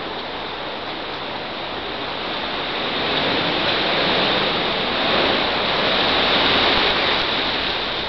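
Steady rushing hiss of a large starling murmuration's massed wings, swelling in the middle as the flock wheels closer overhead.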